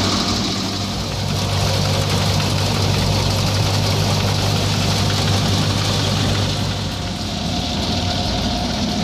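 Tractor-powered wheat thresher running at a steady speed: a low engine hum under the noise of the spinning threshing drum and grain moving through the machine.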